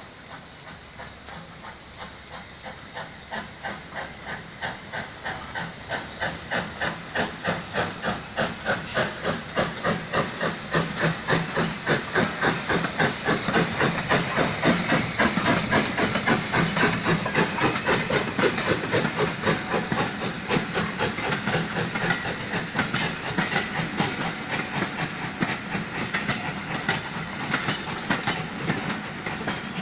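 Saddle tank steam locomotive working a train, its exhaust chuffing in a steady rhythm of about two to three beats a second with a hiss of steam, growing louder as it draws near. Sharp clicks join in over the later part.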